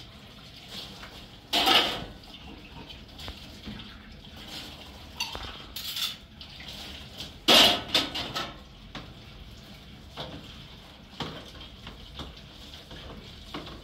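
Dishes and cutlery clattering as they are handled at a kitchen sink and set into a dish rack, with two loud clanks, about two seconds in and again about seven and a half seconds in, and a few lighter knocks between.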